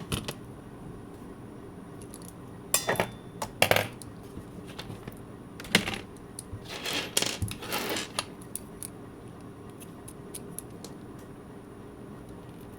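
Small hard parts and hand tools clicking, tapping and scraping on a work surface during a smartwatch teardown. There are a few sharp taps, a cluster of strong clicks about three to four seconds in, then a rougher run of scraping and clatter around six to eight seconds, followed by faint scattered ticks.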